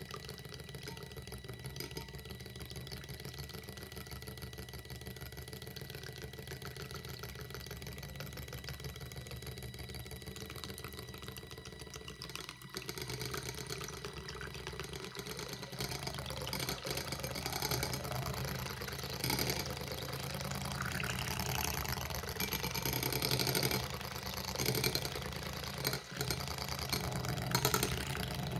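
Cordless battery-powered mini electric whisk (5startool Cosy) running with a steady small-motor whine, its stainless steel head whisking beaten eggs in a glass bowl. From about halfway the whisking grows louder and more uneven as the eggs froth.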